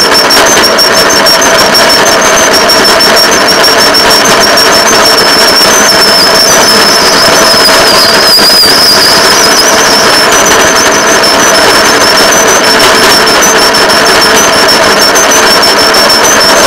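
Rail motorcar running along the track: steady, loud engine and wheel-on-rail noise, with a thin high whine that wavers throughout.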